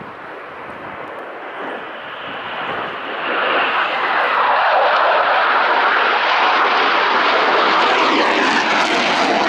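Jet aircraft flying past overhead: a steady engine rush that grows much louder from about three seconds in and stays loud to the end, with a falling sweep through it as it passes.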